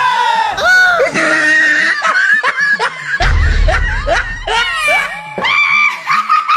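High-pitched voices laughing and shrieking in quick short bursts, over music with a heavy bass passage about three seconds in.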